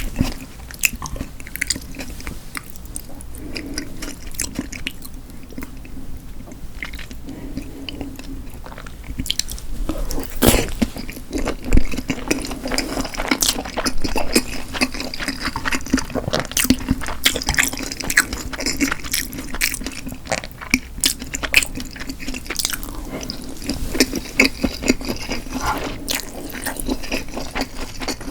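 A person chewing food close to the microphone, with many small, irregular wet mouth clicks and squishes.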